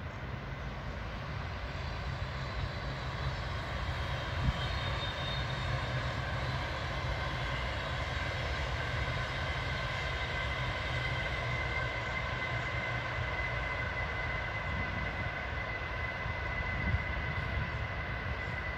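NS ICMm "Koploper" electric multiple unit, three sets coupled, running past: a steady rumble with high whining tones that grow stronger through the middle of the pass. A single short knock about four and a half seconds in.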